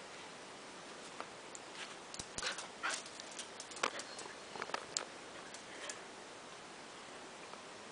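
A dog moving about on a tiled floor, a scatter of light clicks and knocks about one to six seconds in over a steady hiss.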